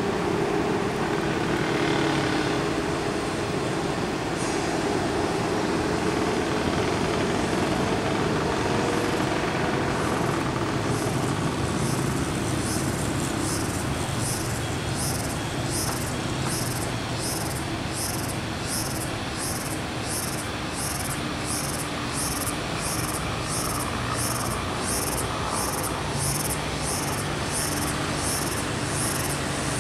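Bus diesel engine running steadily as the bus drives along the road. From about ten seconds in, a regular high-pitched pulsing, about one and a half beats a second, sounds over it.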